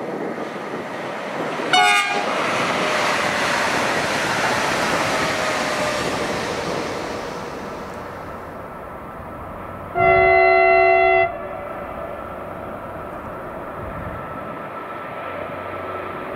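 An electric multiple unit gives a short horn blast about two seconds in and runs past, its rolling noise swelling and then fading. About ten seconds in, an approaching electric locomotive sounds one loud, steady horn note lasting just over a second.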